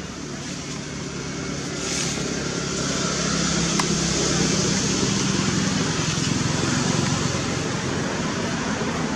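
A motor engine hums steadily under a broad hiss, growing louder about two seconds in, with one sharp click near the middle.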